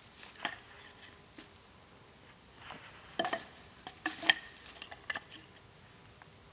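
Dry wooden sticks knocking and clattering against each other as firewood is gathered and handled, in scattered sharp knocks, the loudest cluster about three to four and a half seconds in.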